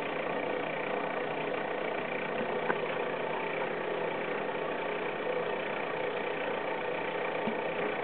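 Boat engine running at a steady low speed, an even hum that holds constant throughout.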